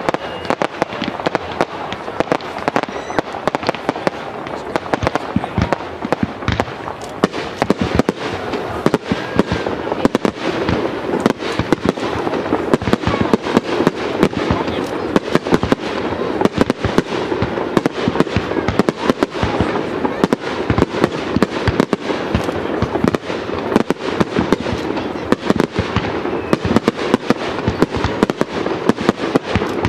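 Aerial fireworks display: a dense, unbroken run of shell bursts and crackling bangs, several each second.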